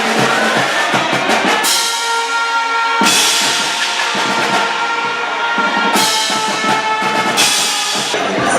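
Loud drum-led music, with snare and bass drum beating a busy rhythm and held notes sounding over the drums through the middle.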